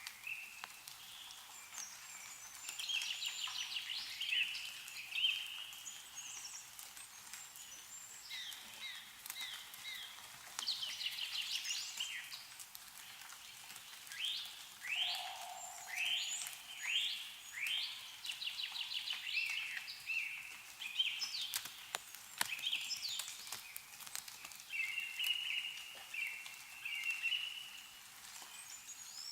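Several songbirds singing and chirping, one after another and overlapping, with scattered drips of melting snow falling from the trees.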